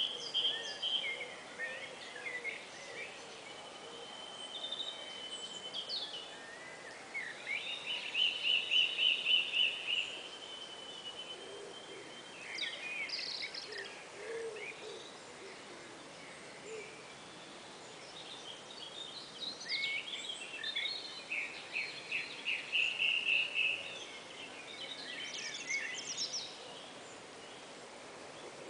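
Songbird singing: high, dry-sounding whistled chirps, with twice a rapid even trill of repeated notes lasting two to three seconds.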